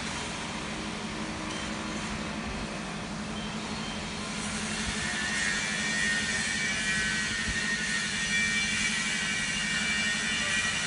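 Scissor lift's power unit running steadily: a low, fast-pulsing mechanical hum, with a higher whine joining about halfway.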